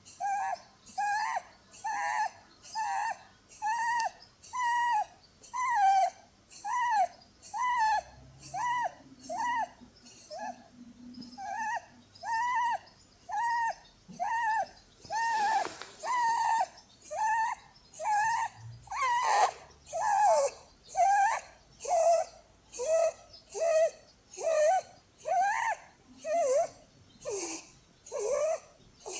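Holland lop rabbit snoring in its sleep: a short, whistling squeak with each breath, about one a second, each rising and falling in pitch, with a breathy hiss over it. The snoring comes from the breed's short, flat face.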